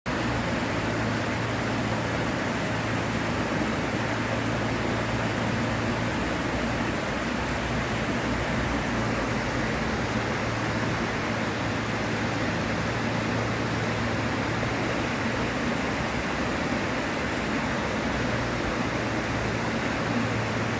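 River water flowing, a steady rushing noise that holds even throughout.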